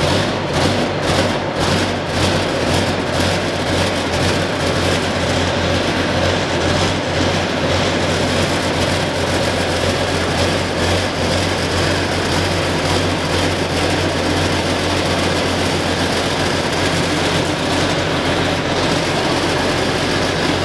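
John Deere 8960's Cummins six-cylinder turbo diesel running just after a cold start. It pulses a little unevenly for the first several seconds, then settles into a steady run.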